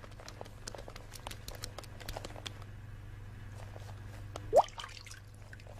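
Leaky faucet drip: a single loud water-drop plink with a quick rising pitch about three-quarters of the way through. Scattered faint clicks and a steady low hum run underneath.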